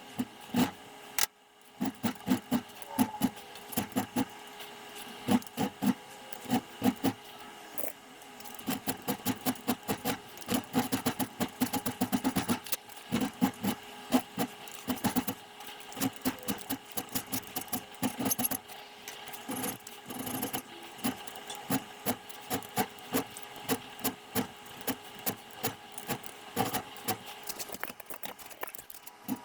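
Repeated sharp metal-on-metal taps and clicks from hand work on a pair of old steel slip-joint pliers. They come unevenly, sometimes in quick runs, over a steady hum.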